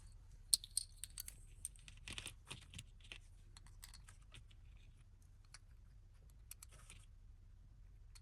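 Blind-box packaging being handled and opened: a run of faint, irregular crinkles and clicks of plastic and cardboard, starting about half a second in and stopping around seven seconds.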